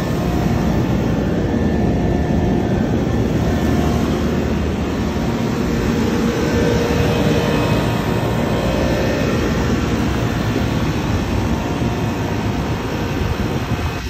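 Trane IntelliPak rooftop HVAC unit running, its fans making a steady, loud rushing drone.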